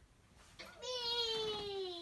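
A toddler's whining cry: one drawn-out wail that starts about halfway through and slides slowly down in pitch.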